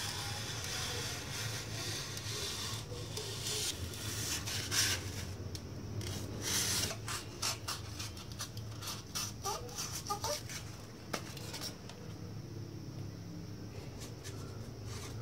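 Hand rubbing or sanding strokes on a craft piece. Longer scratchy passes come first, then a run of short, quick strokes through the middle, and it turns fainter near the end.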